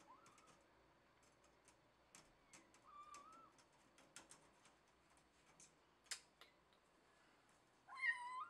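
Kitten meowing three times: a short faint meow at the start, another about three seconds in, and a louder, longer meow rising in pitch near the end. Scattered faint clicks come between the meows.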